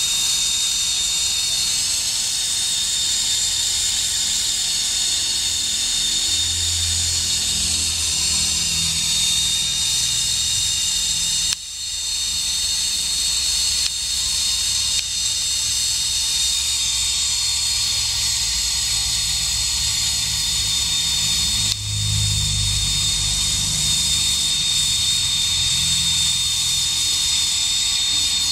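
Gas brazing torch flame hissing steadily as it heats a copper ground wire on a ground rod for silver brazing. The hiss dips sharply and recovers twice, near the middle and about two-thirds of the way through.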